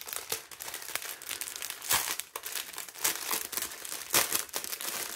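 Crinkly clear plastic wrapper crackling and rustling as hands unwrap bagged diamond-painting drills, in irregular crackles with sharper peaks about two seconds in and again just past four seconds.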